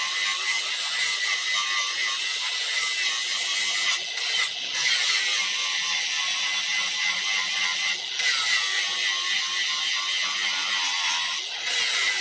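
Handheld angle grinder with an abrasive disc grinding the blade of an iron sickle, a continuous high-pitched grinding hiss over the motor's whine. The grinding sound breaks off briefly about four times, with the motor's pitch shifting as it does.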